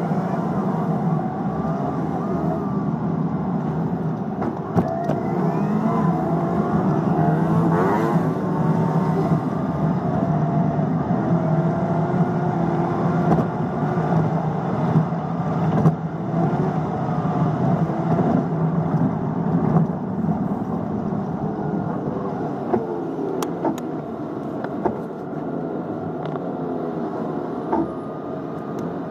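Traffic heard from inside a moving car's cabin: a steady low running hum, with the engines of nearby vehicles rising and falling in pitch throughout.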